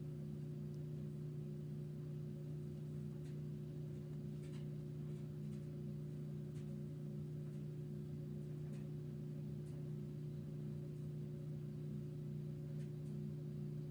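A steady low hum with several fixed pitches, unchanging throughout, with a few faint light ticks now and then.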